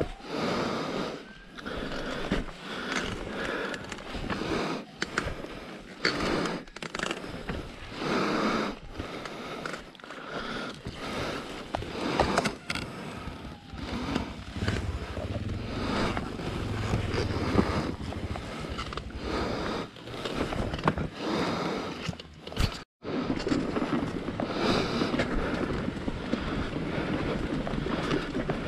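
Enduro motorcycle riding over rough dirt trail: an uneven, noisy rumble with frequent knocks and rattles from the ground and bike, rising and falling in loudness. The sound cuts out briefly about 23 seconds in.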